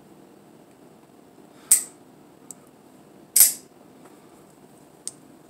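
Two sharp snaps about a second and a half apart, the second the loudest, from an Atomic Defender out-the-front knife's spring-driven blade firing along its track under the thumb slider. Faint clicks of the slider come between and near the end. The slider will only disengage the blade lock near the bottom of its travel.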